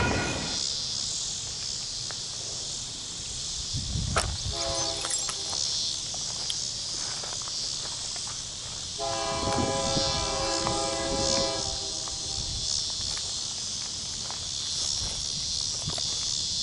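A distant locomotive horn sounds twice, a short blast about four seconds in and a longer one about nine seconds in, over the steady buzz of insects. The tail of a passing freight train fades out at the very start.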